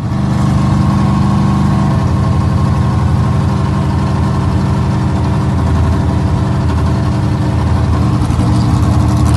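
Drag race car's engine idling steadily at a loud, pulsing idle, with no revving.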